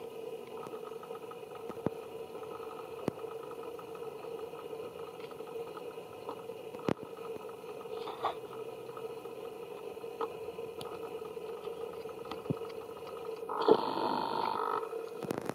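A steady, even hum with a few faint sharp clicks, and a brief louder high-pitched sound lasting about a second near the end.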